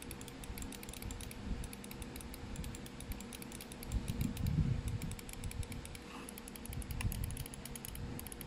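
Logitech G304 gaming mouse buttons clicking rapidly and repeatedly on newly fitted Kailh GM red micro switches, a quick run of crisp, light clicks as the repaired buttons are tested.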